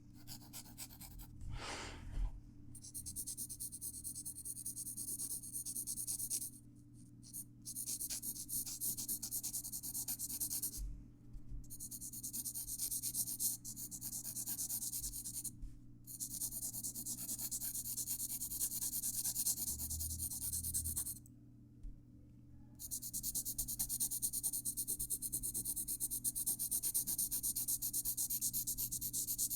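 Graphite pencil moving across paper in quick, continuous back-and-forth strokes, in long stretches broken by short pauses as the pencil lifts.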